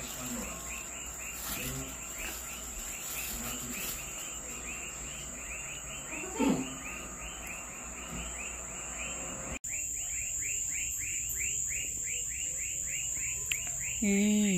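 Insects chirping in a steady rhythm, about four short chirps a second, over a constant high-pitched whine. A voice is heard faintly twice and more loudly near the end.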